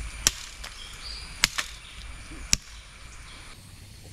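Machete blade chopping at a green ama cane being trimmed into a fishing pole: three sharp chops about a second apart, the second followed closely by a lighter one.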